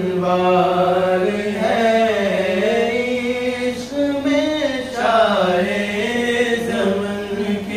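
Male voice singing an Urdu manqabat, a devotional praise poem for a Sufi saint, in long drawn-out notes that bend in pitch, phrase after phrase with short breaths between.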